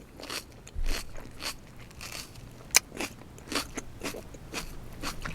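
Close-miked chewing of raw red pepper: irregular crisp crunches, about two or three a second.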